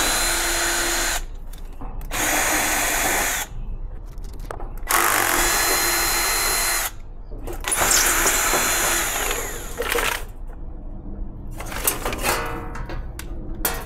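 Ryobi cordless drill/driver backing out the 5/16-inch hex screws from a sheet-metal air-conditioner condenser panel, in four separate runs of a second or two each. Near the end the loosened metal panel rattles as it is lifted off.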